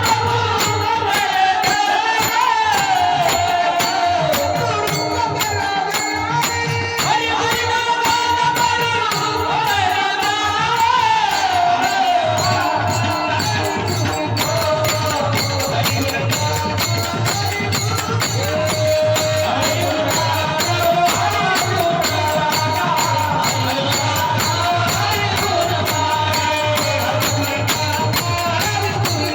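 Varkari bhajan music: a sustained melody line that glides up and down, over a steady, fast beat of small hand cymbals and drum.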